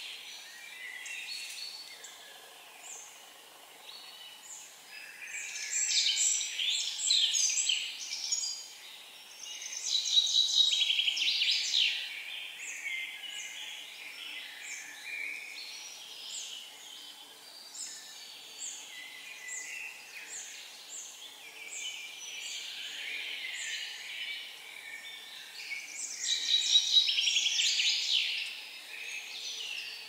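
Several songbirds singing: short, repeated high notes go on throughout, and a louder song phrase from a nearer bird comes about five seconds in, again around ten seconds, and near the end.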